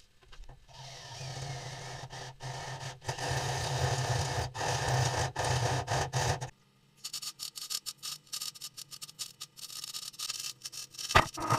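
Electric welding arc crackling for about six seconds over a low hum, then stopping; fainter, irregular crackles and clicks follow.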